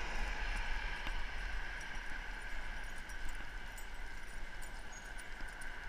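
Steady wind and rolling-wheel noise from a rider being pulled along a paved trail by a pair of harnessed huskies, with a low rumble and a few faint ticks.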